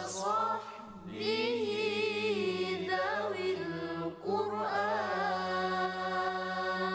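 A man's voice chanting beginner Arabic letter syllables in long, drawn-out notes, the way a Qur'an-reading primer is recited. There are three held phrases, with short breaks about a second in and about four seconds in.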